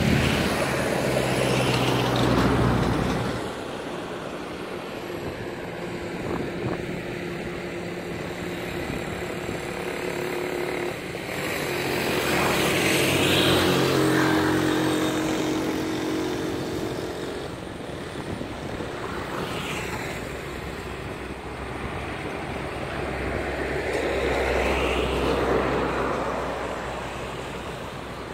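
Motor vehicles passing three times, each one rising and then fading: near the start, about halfway through, and near the end.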